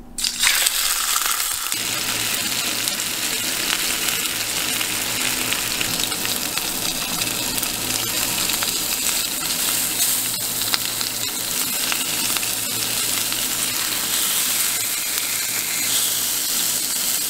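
Striped bass fillets searing skin-down in hot oil in a nonstick pan: steady sizzling that starts a moment in.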